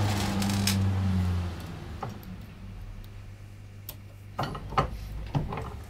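A steady low hum that stops about a second and a half in, then a few light, sharp metallic clicks and taps near the end as small parts and a hand tool are handled at a bench arbor press.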